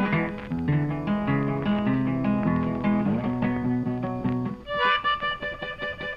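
Instrumental background music with plucked-string notes over a moving bass line. About three-quarters of the way through it changes to a brighter passage of quick, repeated higher notes.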